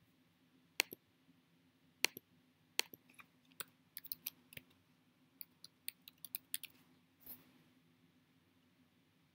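Two sharp clicks about a second apart, then a quick, uneven run of keystrokes on a computer keyboard lasting about four seconds, and a brief soft noise near the end.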